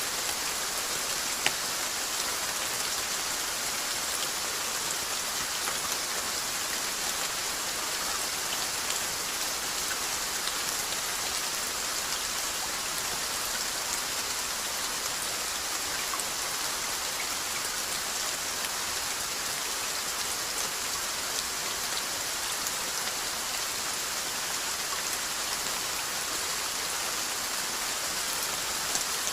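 Steady rainfall: an even hiss of rain with individual drops ticking on a surface, and one sharper drop strike about a second and a half in.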